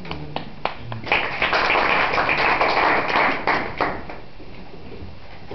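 A small audience clapping: a few single claps, then about three seconds of applause that stops about four seconds in.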